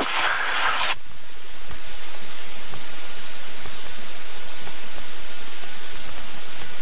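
Steady rushing hiss of the Cessna 172's cabin noise, engine at idle and airflow, picked up through the headset intercom during the landing rollout. It is a little louder in the first second, then holds even.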